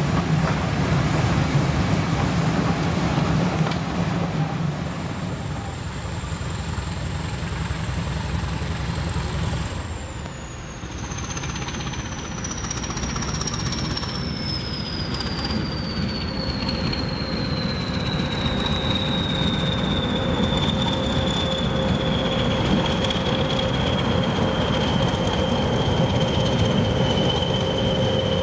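Vintage railway coaches rolling past slowly, a low rumble of wheels on rails. Then a Class 20 diesel locomotive leading a Class 52 'Western' diesel-hydraulic approaches at low speed, with a high whine that falls steadily in pitch over many seconds and a steady lower hum joining in.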